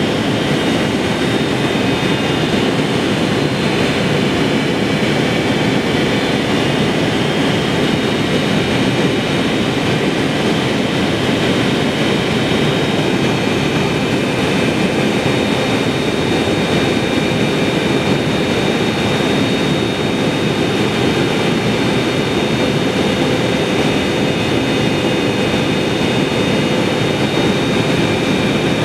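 Steady cabin noise inside a Boeing 777-300ER descending to land: an even rush of airflow over the fuselage mixed with the drone of its GE90-115B jet engines, with a few faint steady high tones above it.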